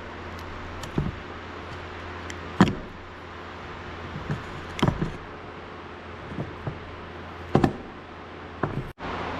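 Hammer blows seating a new grease seal into a tractor front wheel hub: about half a dozen sharp metal knocks at irregular spacing, over a steady shop hum.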